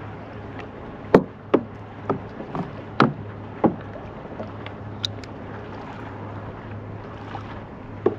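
Small waves slapping and knocking against the hollow plastic hull of a sit-on-top fishing kayak: several irregular hollow knocks in the first few seconds, then two more, the last near the end, over a steady low hum of wind and water.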